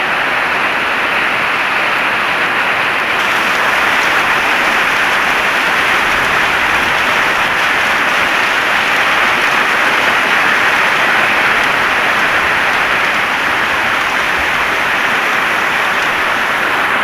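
Heavy rain falling steadily as a dense, even hiss, growing slightly louder and brighter about three seconds in.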